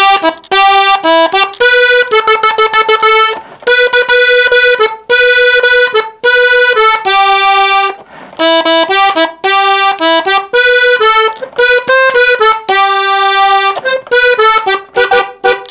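Three-row diatonic button accordion tuned in G, playing a melody on its treble buttons in short phrases with brief pauses between them.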